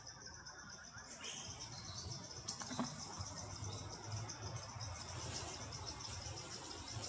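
Forest insects trilling steadily in a high, rapidly pulsing chorus, with one brief sharp click about three seconds in.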